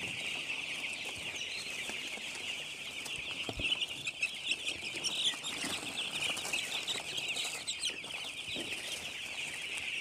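A large flock of week-old broiler chicks peeping all at once: a dense, unbroken chorus of high, overlapping chirps.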